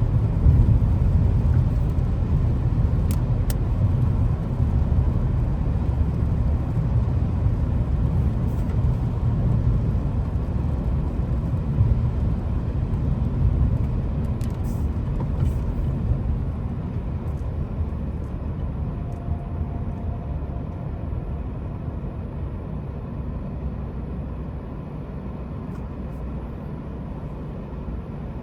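Low, steady rumble of road vehicles, fading gradually over the stretch, with a couple of faint clicks.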